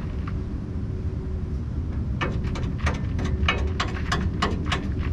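Sharp metal-on-metal taps, several a second at uneven spacing, starting about two seconds in: a stuck bolt on a race car's rear suspension being knocked loose. A steady low rumble runs underneath.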